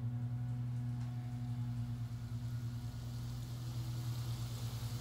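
Low, steady drone with a high hiss that swells toward the end: a film's suspense soundtrack building tension.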